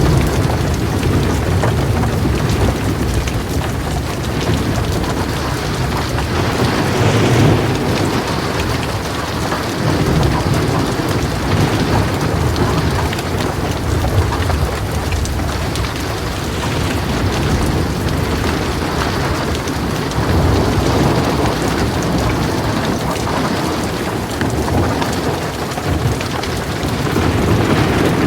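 Heavy rain falling steadily, with low rolling thunder rumbling underneath that swells several times and dies back.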